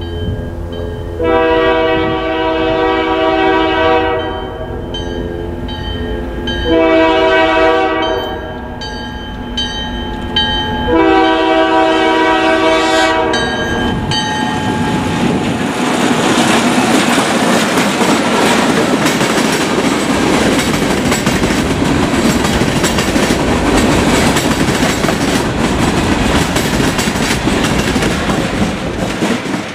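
Alco M420 diesel locomotive sounding its multi-tone air horn in three blasts for a grade crossing, the middle blast shortest. It then passes close by, its 12-cylinder engine running under load and its wheels clacking over the rail joints as the freight cars follow.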